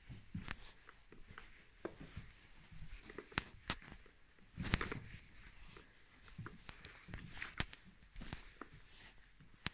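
Irregular footsteps and scuffs on loose stony ground, with scattered small knocks.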